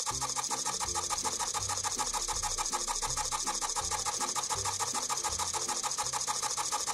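SG90 micro servo's plastic gear train buzzing as it drives the 3D-printed Z-axis pen holder up and down: a fast, even rasping pulse over a lower hum that shifts every half second or so, cutting off suddenly near the end.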